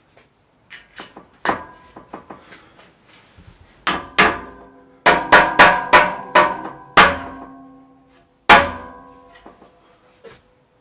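A mallet tapping plastic cover caps into the screw holes of an aluminium-profile cube connector: about ten sharp blows, most of them bunched between four and seven seconds in, the aluminium frame ringing briefly after each one. A few lighter taps come before them.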